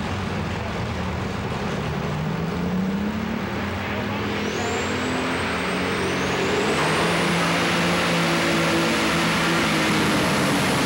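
Alcohol-burning light super stock pulling tractor's engine running hard at the starting line, then throttling up to launch. A high whine rises in pitch from about four seconds in and holds, and the engine gets louder just before the halfway point.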